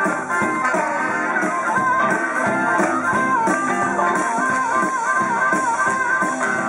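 Live blues band playing an instrumental passage: amplified harmonica, cupped against a hand-held microphone, playing held notes that waver up and down, over electric guitar.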